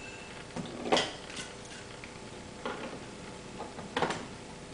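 Hard plastic parts of a 3D-printed robot arm knocking and clicking as they are handled, a few light knocks spread apart, the loudest about a second in.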